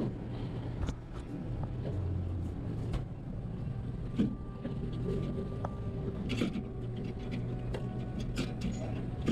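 Drink bottles and cans knocking and clinking now and then as they are restocked into a shop fridge, over a steady low hum.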